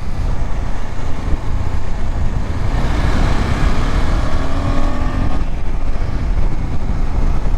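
Wind rush and engine rumble of a moving KTM 250 Adventure motorcycle. Near the middle, a faint engine note rises slightly for a couple of seconds.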